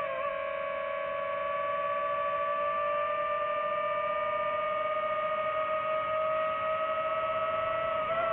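Quadcopter motors and propellers whining steadily, the pitch rising slowly through the flight, with brief wobbles in pitch just after the start and near the end, as the throttle changes.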